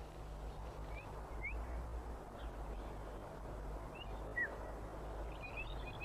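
A small songbird giving a few short, high chirps, then a quick run of twittering notes near the end, over a steady low hum and hiss.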